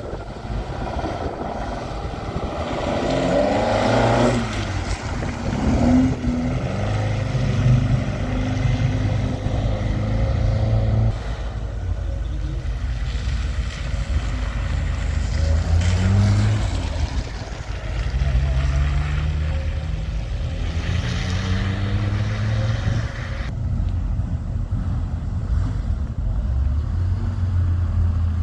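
Engines of classic cars running and revving, several in turn, their pitch rising and falling as each pulls away or passes.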